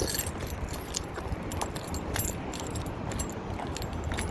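Low wind rumble on the microphone with scattered light clicks and jingling at irregular moments.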